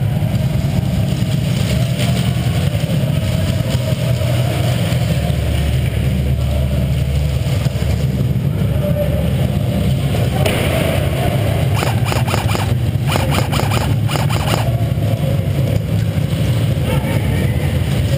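Steady low rumble from a GoPro Hero HD's microphone, muffled inside its sealed case. About twelve seconds in comes a run of rapid, sharp clicks that lasts a couple of seconds.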